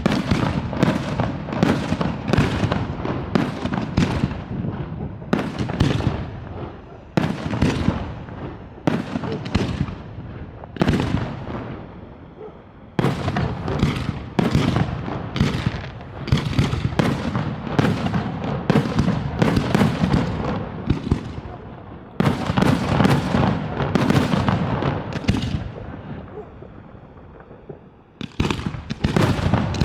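Aerial fireworks display: rapid volleys of shell bursts, each trailing into crackle, with short lulls about twelve seconds in and again shortly before the end before the bursts start up again.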